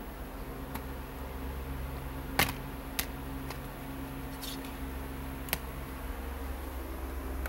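Plastic DVD case being handled and opened: about six short, sharp clicks, the loudest about two and a half seconds in, over a steady low hum.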